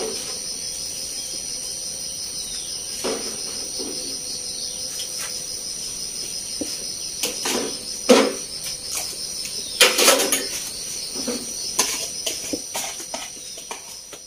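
Steady high-pitched insect chirring with a fast pulsing edge, and over it a scatter of clinks and knocks of metal bowls and spoons on a metal tray being handled, loudest about eight and ten seconds in.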